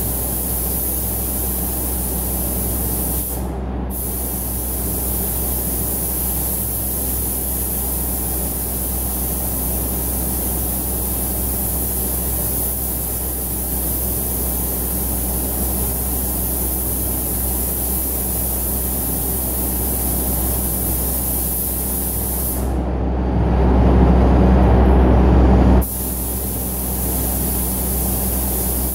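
Compressed-air paint spray gun hissing steadily over the constant drone of the spray booth's extraction fans. The spray cuts off briefly a few seconds in. Near the end it stops again for about three seconds while a louder low rush takes over.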